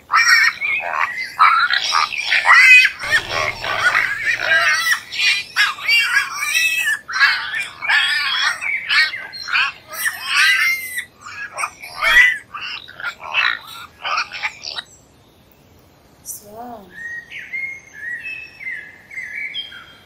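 A herd of pigs squealing over one another, many loud overlapping squeals in quick succession. The squealing cuts off about three-quarters of the way through. After a short quiet, a few bird chirps follow near the end.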